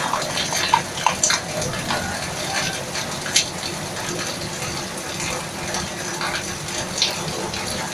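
Steady rushing noise with faint distant voices and a few sharp clicks.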